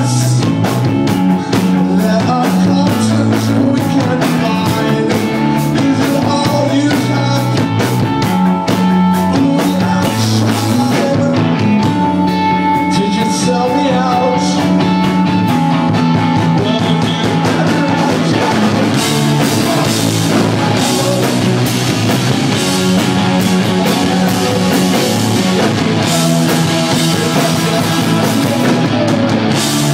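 A rock band playing loud live: electric guitars, bass and a drum kit, with a man singing lead.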